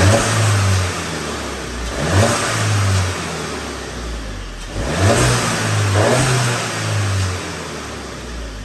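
Volkswagen Golf GTI's turbocharged engine being revved in four short blips. Each rise settles back toward idle, and the induction noise comes through a CTS Turbo intake that replaces the factory one.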